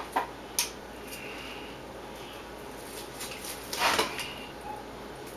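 Pliers and hands working a channel catfish on a wooden cutting board while its skin is pulled off: a few sharp clicks near the start, then a louder tearing sound about four seconds in.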